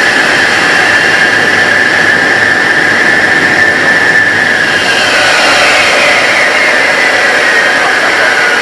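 Handley Page Victor's Rolls-Royce Conway turbofan jets running, heard from inside the cockpit: a loud, steady roar with a high whine that slowly falls in pitch from about halfway through.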